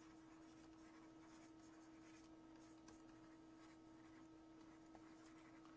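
Near silence with faint, irregular scratching of handwriting strokes from a stylus writing on a tablet, over a steady faint hum.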